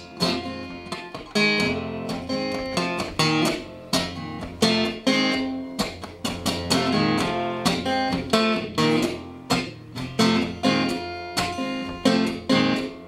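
Acoustic guitar strummed in a steady rhythm, an instrumental stretch between sung lines of a folk song.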